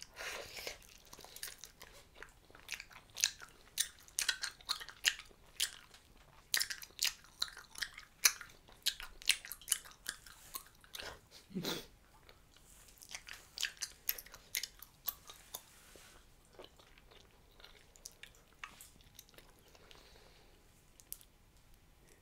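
Mouth chewing a wad of Hubba Bubba bubble gum, with wet smacking clicks about two to three times a second that thin out after about sixteen seconds.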